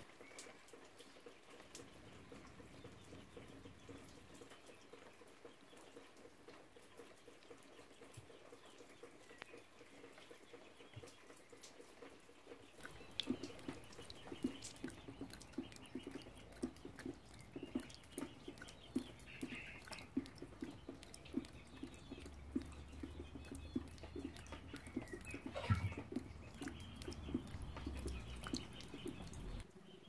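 Rain dripping and pattering, faint at first and turning to a dense run of sharp drop ticks about halfway through, with a few faint bird chirps now and then.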